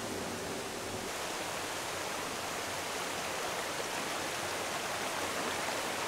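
Steady rush of water flowing over rocks in a stream, an even hiss that stays unbroken throughout.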